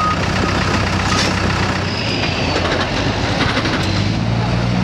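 Heavy equipment's engine running close by, a steady mechanical hum that grows louder near the end, with a reversing beeper sounding a couple of times at the start.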